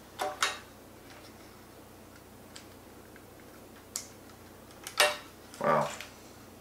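Small plastic clicks and taps as a tiny ND filter is snapped onto the DJI Mavic Mini drone's gimbal camera: a few scattered sharp clicks, the loudest about five seconds in, then a duller handling sound near the end.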